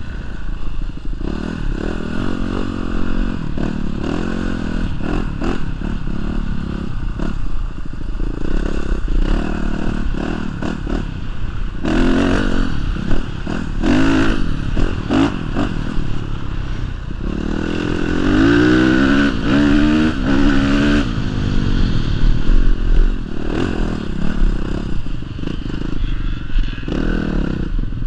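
Honda CRF450 dirt bike's four-stroke single-cylinder engine running under the rider, its pitch rising and falling in waves as the throttle is worked, strongest about halfway through and again two-thirds of the way in.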